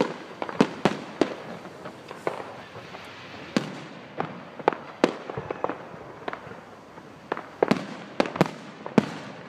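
Fireworks display: aerial shells going off in a rapid, irregular series of sharp bangs, often several a second, with a loud cluster near the end.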